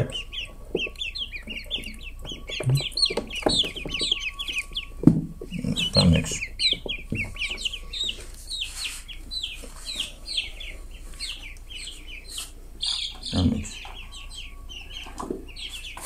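A crate full of young chicks and ducklings peeping continuously, many rapid short falling peeps overlapping, with a few dull thumps about six seconds in and again near the end.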